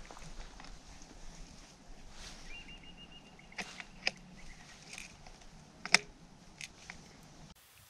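A few sharp clicks and knocks of a scoped hunting rifle being handled and readied by a kneeling hunter, the loudest about six seconds in, over a quiet outdoor background.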